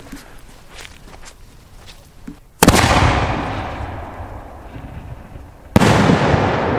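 Two loud aerial firework shell bursts about three seconds apart, each a sudden sharp bang followed by a long rolling echo that fades slowly. Before the first there are a couple of seconds of faint scattered pops.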